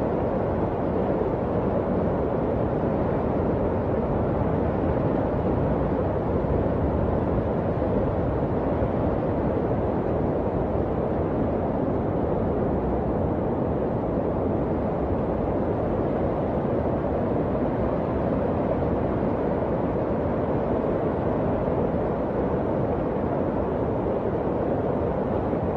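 Muddy flash-flood torrent rushing past: a steady, low rushing noise of fast floodwater that does not let up.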